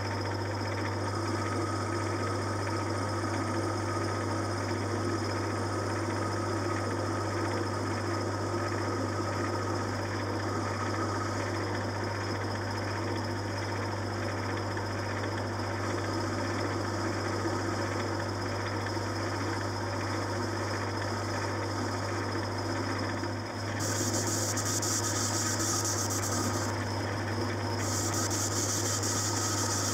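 Metal lathe running steadily with a strong low hum while turning a model engine flywheel. Near the end the cutting tool bites in and a loud hissing cutting noise comes in twice, each time for about three seconds.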